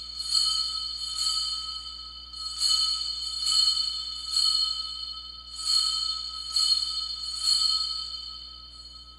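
Altar bells rung at the elevation of the host, marking the consecration. They are shaken in groups of three, about one stroke a second, and the ringing carries on between strokes before dying away near the end.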